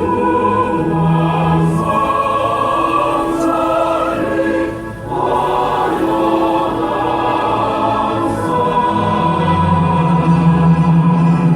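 Choral music: many voices singing long held notes, with a short break about five seconds in.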